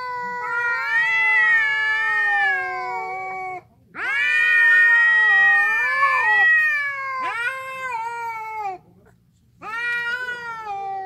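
Orange-and-white stray cats yowling in a territorial standoff. They give long, drawn-out, wavering howls one after another, with short gaps between them.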